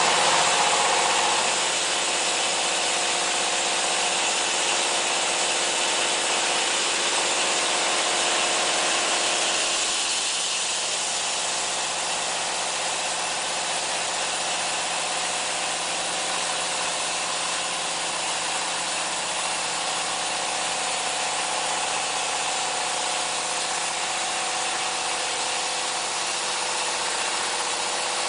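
JY700P horizontal band sawmill running and sawing wood, its engine and band blade making a steady, loud mechanical drone; the sound drops a little about ten seconds in and then holds steady.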